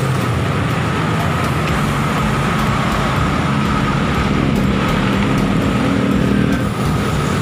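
Road traffic close by: car and motorbike engines running past. One engine's note grows stronger over the middle seconds and drops away about a second before the end.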